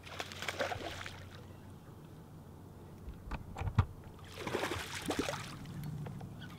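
Water splashing twice as a hooked smallmouth bass thrashes at the surface beside the boat, about half a second in and again around four and a half seconds. Between them come a few dull, heavy thumps on the boat's deck as the angler drops to his knees.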